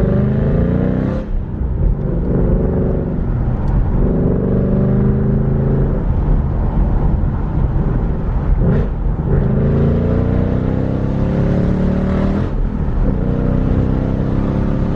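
2017 Mustang GT's 5.0 V8 through a Borla ATAK cat-back exhaust, pulling under acceleration. The pitch climbs with the revs and drops at each of several manual gear shifts.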